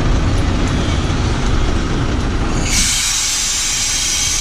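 Ashok Leyland tourist bus's diesel engine and road rumble heard from the driver's cab while under way. About two-thirds of the way through, the rumble drops away and a loud, steady hiss takes over.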